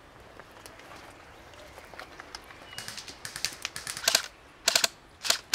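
Airsoft rifle firing in short bursts: a rapid clatter of sharp clicks, sparse at first and getting louder and denser in the second half.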